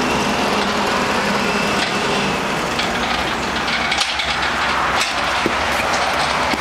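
An engine idling steadily, with a few sharp knocks about four and five seconds in.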